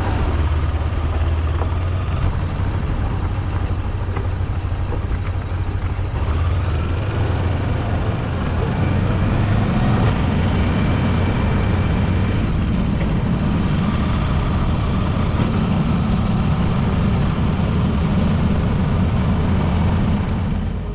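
Motorcycle running steadily on the road, a constant low engine drone with wind and road noise over it.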